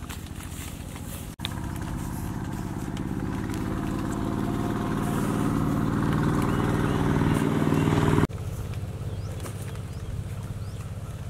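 A small engine running steadily, growing louder over several seconds, then cutting off suddenly about eight seconds in, leaving a quieter low hum.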